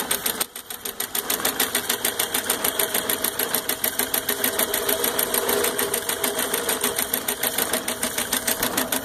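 Homemade model steam traction engine, run by an electric motor rather than steam, belted to a small model thresher with a shaker, running with a fast, even mechanical clatter. The clatter dips briefly about half a second in.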